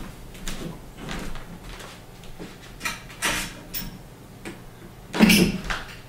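Scattered knocks, rustles and footfalls of someone moving about and handling things, with a louder knock about five seconds in. No trombone is being played yet.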